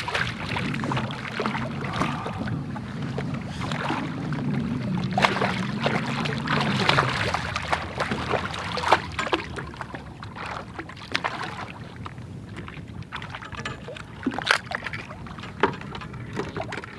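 Lake trout thrashing and splashing at the surface beside a boat hull, with sharp splashes scattered throughout and water slapping against the hull. A low hum runs under the first half and stops about seven seconds in.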